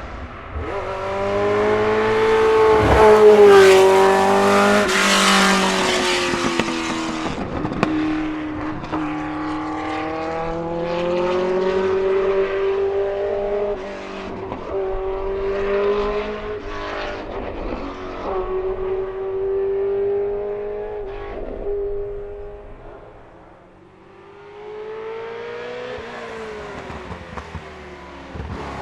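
Porsche 908/3 Spyder's air-cooled 3.0-litre flat-eight racing engine accelerating hard. It passes close about three seconds in, then pulls away, the revs climbing and dropping back with each gear change. The sound fades low around three quarters of the way through and builds again near the end.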